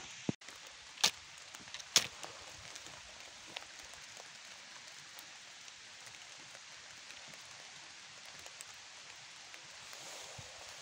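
A few sharp clicks in the first two seconds, then the steady patter of light rain falling.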